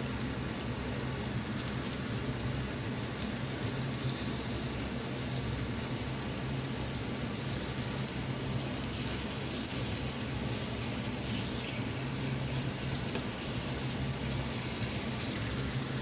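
Chicken breasts sizzling steadily in a frying pan as the juices they released cook off in the oil, with a steady low hum underneath.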